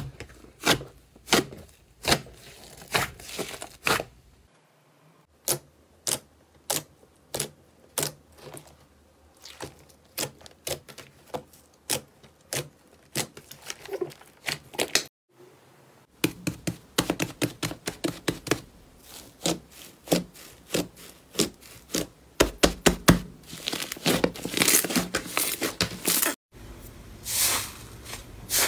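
Slime being pressed and worked, making a dense run of sharp crackles and pops. The sound breaks off abruptly a few times and starts again.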